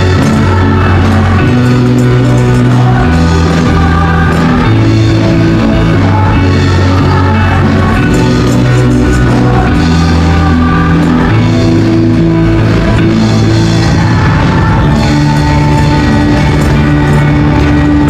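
Upbeat praise and worship song played loud by a band, with voices singing over it and a bass line stepping from note to note every second or two.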